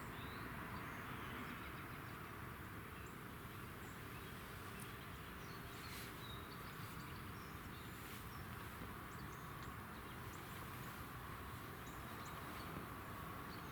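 Quiet outdoor ambience: a steady hiss with faint, scattered high chirps.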